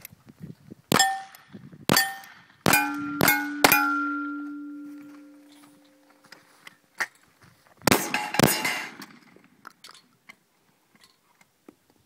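Revolver shots at steel plate targets, each crack followed by the clang of a struck plate: five shots in the first four seconds, the last hits leaving a ringing tone that fades over a couple of seconds, then two more shots about half a second apart some four seconds later.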